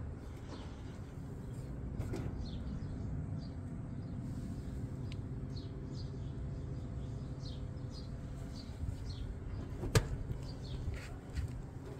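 Small birds chirping in quick, short calls over a steady low hum, with one sharp click about ten seconds in.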